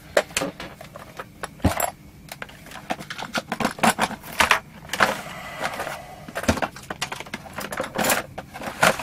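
Small tools and objects being handled and set down on a workbench: irregular clicks, knocks and light clatter, including a small wire brush laid down.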